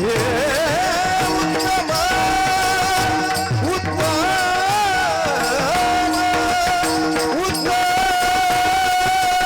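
A high male singing voice performing a Marathi Varkari abhang, drawing out long held notes with wavering ornaments between them, over instrumental accompaniment.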